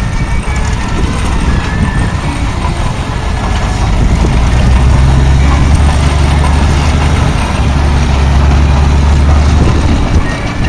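A diesel engine running steadily, its low hum growing louder about four seconds in and easing off near the end, over a noisy outdoor background.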